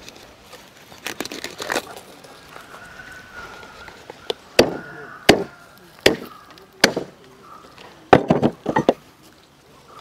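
Big knife hacking through a large tuna's head and collar, with sharp separate chops that come about every second from the middle on and three in quick succession near the end.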